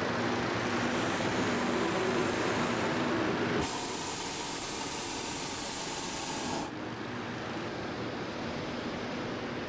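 Hot-air balloon propane burner fired in one hissing blast of about three seconds, starting about four seconds in and cutting off suddenly, over a steady rushing background noise.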